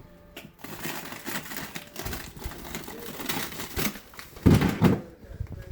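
Plastic food packaging crinkling and rustling as items are handled and moved around, with two heavier knocks about four and a half seconds in.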